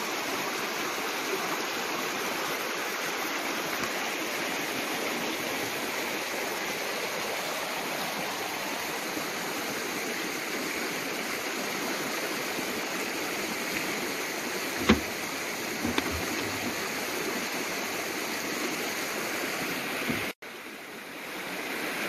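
Shallow river rushing steadily over rocks. Partway through there is a sharp knock, then a softer one a second later. Near the end the water sound cuts off abruptly and comes back fainter.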